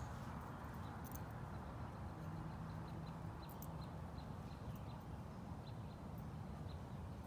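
Quiet outdoor ambience: a steady low rumble with faint light ticks about twice a second.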